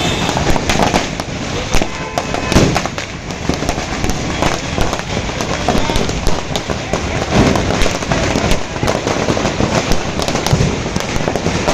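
A 1000-shot string of firecrackers going off in a continuous, rapid crackle of bangs with no pauses.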